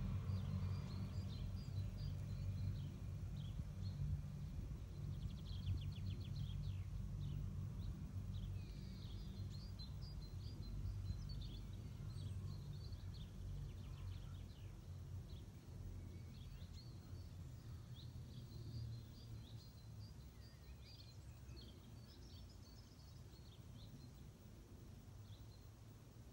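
Small birds chirping and twittering over a steady low rumble that slowly grows quieter.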